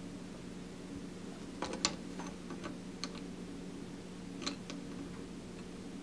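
A few light metallic clicks and taps from a galvanized steel messenger clamp and stranded steel messenger wire being handled, a cluster in the first half and a pair a little later, over a steady low hum.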